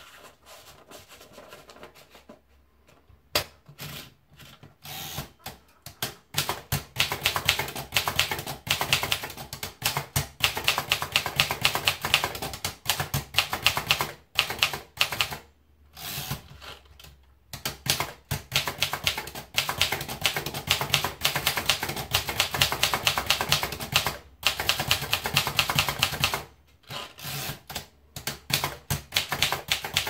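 Remington Portable manual typewriter being typed on: a rapid clatter of typebars striking the platen, several strokes a second in runs, broken by short pauses. The first few seconds hold only faint, sparse handling clicks as the paper is wound in.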